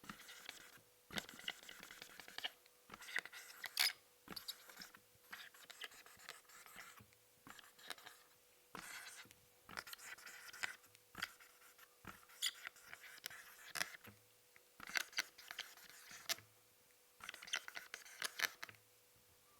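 Dry-erase marker writing on a whiteboard: a run of short scratchy strokes, each a fraction of a second to about a second long, coming in groups with brief pauses between.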